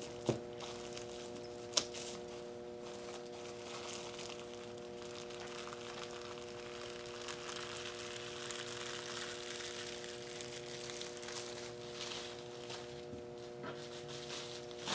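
Faint crinkling and rustling of plastic bubble wrap being pressed and squished into wet acrylic paint, with a couple of light clicks, over a steady electrical hum.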